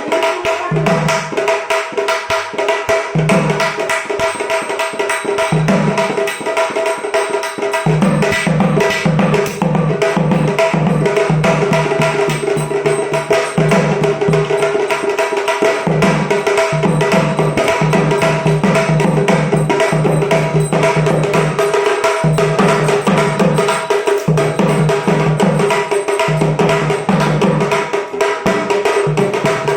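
Sambal, the Maharashtrian pair of stick-played drums, played in a fast, dense roll of stick strokes. The deeper drum comes in and drops out in stretches of a second or two.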